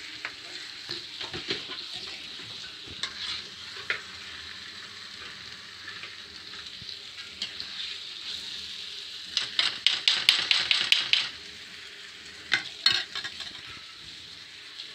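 Raw chicken frying in thick masala paste in a frying pan, sizzling steadily while a spatula stirs and scrapes the pan. About nine and a half seconds in comes a quick run of scraping clatters lasting under two seconds, then a couple more a little later.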